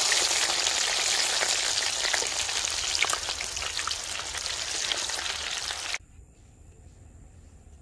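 Battered shrimp deep-frying in hot oil in a cast-iron cauldron: a loud, dense sizzle full of small pops. It cuts off suddenly about six seconds in, leaving only a faint background.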